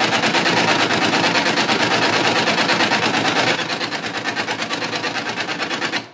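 HP LaserJet Pro M202n laser printer's gear train running with a loud, rapid rattling clatter that eases a little about halfway through and stops suddenly near the end. The noise is the sign of worn, chipped (cut) gears in the printer's gearbox.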